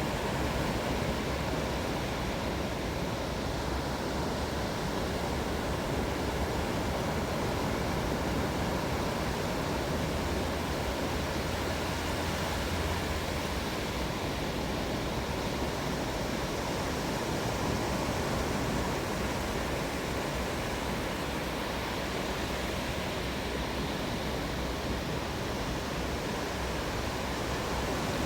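Ocean surf washing onto the shore, a steady, even rush of noise with a low rumble underneath and no single wave standing out.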